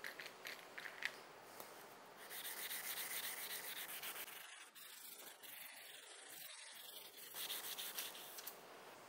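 A round sanding pad rubbed by hand back and forth along a steel kitchen knife blade in quick strokes, sanding the blade. It comes in two spells with a quieter stretch in the middle.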